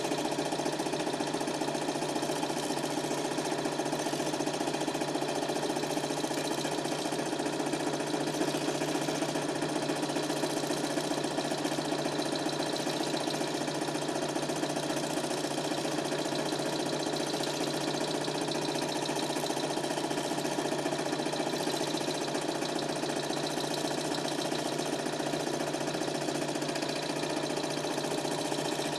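Super 8 film projector running with a steady mechanical hum from its motor and film transport.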